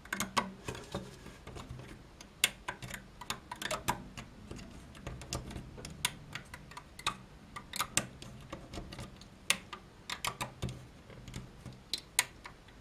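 Irregular light clicks and taps: a plastic crochet hook working rubber loom bands up from the clear plastic pegs of a Rainbow Loom and over their tops, the bands slipping off and against the pegs. The clicks come unevenly, several close together at times.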